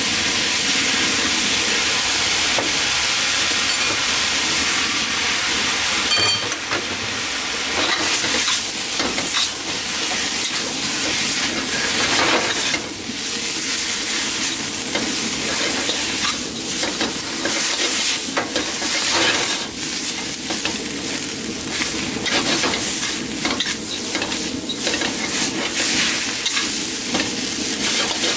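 Chow mein noodles sizzling in a hot seasoned wok as they are stir-fried, with a metal utensil scraping and clinking against the wok. The first several seconds are a steady hiss; after that come quick, irregular scraping strokes.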